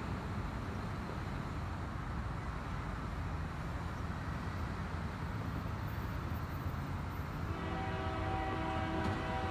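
Approaching train's low, steady rumble in the distance; about three quarters of the way through, the locomotive's air horn sounds a steady multi-note chord that is still going at the end.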